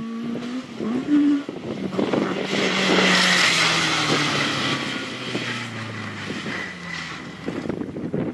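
Citroën Saxo rally car's engine running hard, then its revs falling away as the car slides off the road with a long hiss of skidding tyres, loudest about three seconds in.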